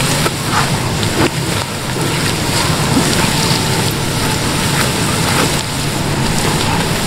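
Sliced onions and ground spices sizzling in hot ghee as they are stirred, with a few short scrapes of the spatula against the pan. The onions are browning in the masala.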